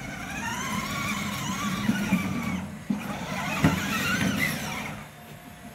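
Battery-powered children's ride-on toy jeep driving, its electric motors and gearbox whining with a wavering pitch that shifts as it moves and turns.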